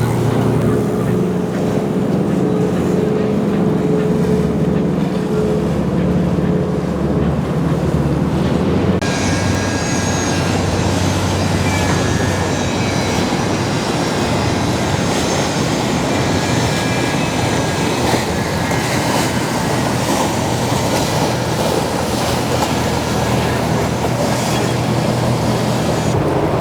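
Motorboat engines running steadily under a rush of water and wind. About nine seconds in, the sound changes abruptly to a brighter, hissier rush, and the engine hum is less prominent.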